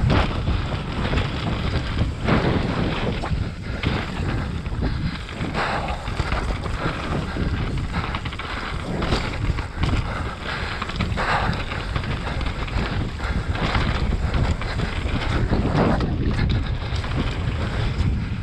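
Wind buffeting an action camera's microphone as a mountain bike rides fast down a dirt forest trail, over a continuous rumble of tyres on the ground. Short clattering knocks come every second or two as the bike goes over rough patches.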